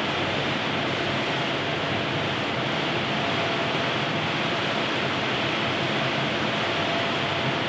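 Steady rushing air noise from a large fan in a dyno bay, even and unchanging in pitch and level.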